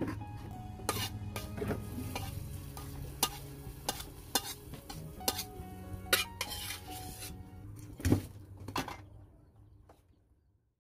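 Metal ladle scraping and knocking inside a wok as fried garlic is tipped out into a pot of soup, with clanks of the metal pots, the sound fading out near the end.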